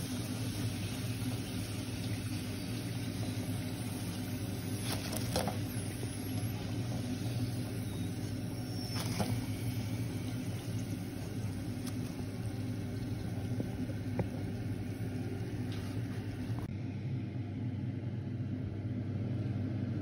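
Steady low hum of a kitchen fan motor under a light hiss, with a few faint clicks; the hiss thins out about three-quarters of the way through.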